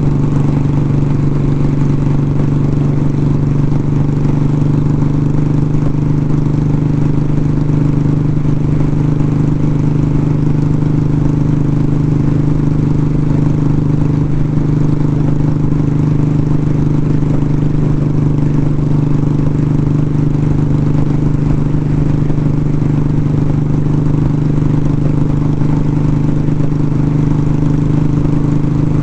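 Motorcycle engine running steadily at cruising speed, heard through a helmet-mounted mic, with wind noise rushing over the microphone.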